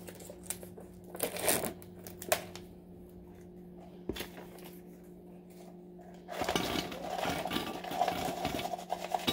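Mini vanilla wafers poured from a plastic cup into a glass dish: a dense rattling clatter of small cookies for about the last three seconds. Before it come scattered clicks and light rustling from handling, with one sharp click about four seconds in, all over a steady low hum.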